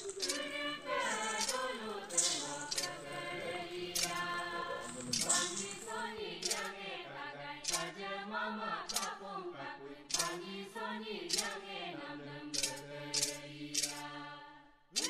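Several voices singing or chanting together in long, held notes, with sharp clicks or clinks about once a second.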